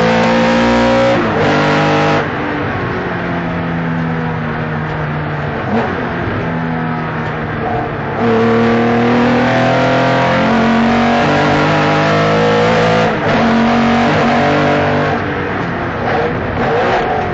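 Porsche 993 RS Clubsport's air-cooled flat-six running hard under load, heard from inside the cabin. Its note dips briefly twice, about two seconds in and again near thirteen seconds.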